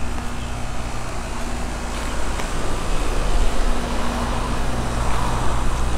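Steady outdoor background noise with a strong low rumble and a faint steady hum that drops out and returns partway through.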